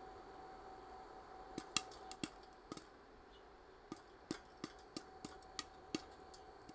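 Popcorn kernels popping one by one in a covered stainless-steel pot, a dozen or so scattered, irregular pops over a faint steady hum: the sparse popping near the end of a batch.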